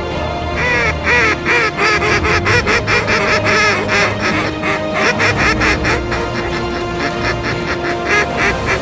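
A fast, steady run of duck quacks, about four or five a second, over background music with held tones.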